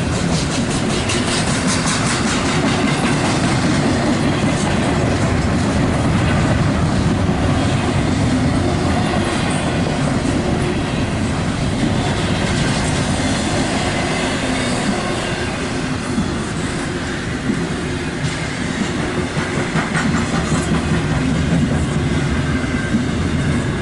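Intermodal freight train cars rolling past at close range in a steady loud rumble, with the wheels clacking over rail joints.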